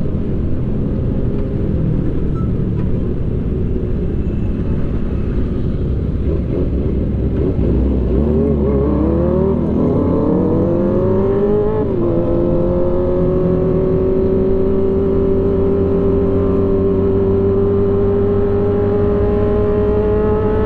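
Sport motorcycle engine heard from the rider's seat with wind rumble. About eight seconds in it revs up, drops in pitch, revs up again and drops once more as it shifts up through the gears. It then holds a steady high note at speed.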